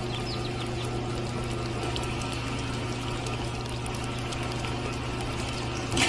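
Small electric motor of a miniature model cement mixer running with a steady hum while its drum churns wet cement mix, with a sloshing, gritty rattle and many small clicks.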